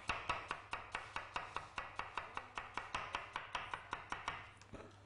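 Kitchen knife chopping fast on a wooden cutting board, a steady run of about five strokes a second that stops a little before the end.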